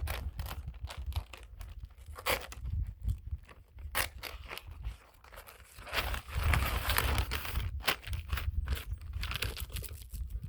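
Synthetic roofing underlayment being handled and laid: crinkling and rustling of the plastic sheet, heaviest in the second half, with scattered sharp taps and clicks.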